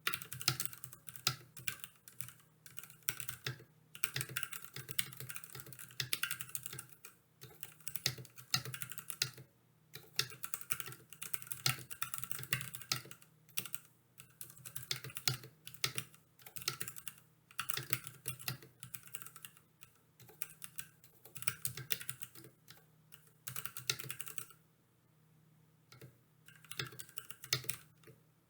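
Typing on a Ducky Mecha SF aluminium-cased mechanical keyboard: rapid keystrokes in bursts, with a pause of about two seconds near the end.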